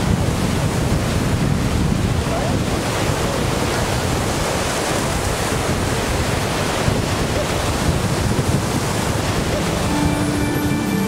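Lake Erie surf breaking on a rocky shore, a steady wash of crashing waves with wind noise on the microphone. Music comes in near the end.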